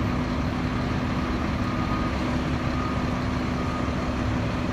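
A heavy diesel engine running steadily at an even pitch, with a constant low hum.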